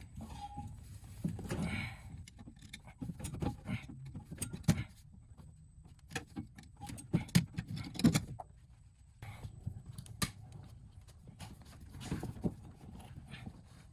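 Irregular metallic clinks, clicks and knocks of hand tools working on coolant hose fittings, with a cluster of sharper knocks about seven to eight seconds in.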